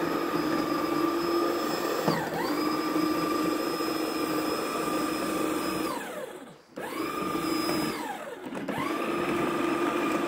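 Snow Joe 24V ION+ 13-inch cordless electric snow shovel's motor running with a steady whine. It dips briefly about two seconds in, then winds down and spins back up twice, around the middle and again past eight seconds.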